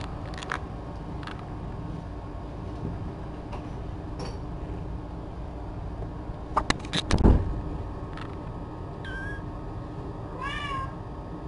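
A few knocks and bumps, loudest about seven seconds in, then a cat meowing twice near the end: a short call and a longer one that rises and falls.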